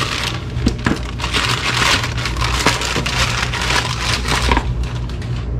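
Plastic mailer bag crinkling and crackling as it is handled and pulled open to take out a small box, with a few light clicks and knocks; it eases off about four and a half seconds in.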